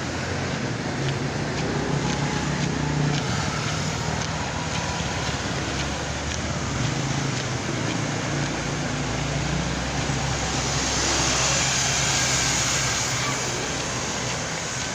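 Steady road-traffic noise with a low engine hum, swelling into a louder hiss about eleven seconds in as a vehicle passes.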